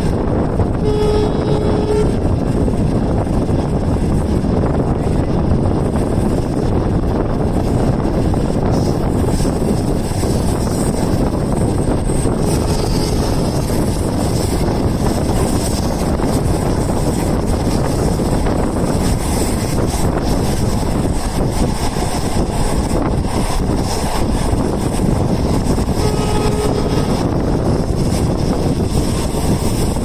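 A non-air-conditioned green passenger coach running at speed, heard through its open window: a loud, steady rush of wind and wheel-on-rail noise. A short steady tone sounds twice, about a second in and near the end.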